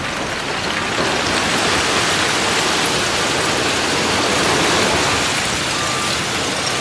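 Loose gravel rushing and sliding in a steady hiss that swells in the middle and eases near the end, over the low running of heavy machinery.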